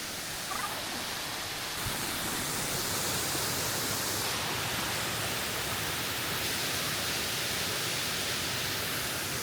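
Waterfall's rushing water: a steady, even rush of noise that grows a little louder about two seconds in.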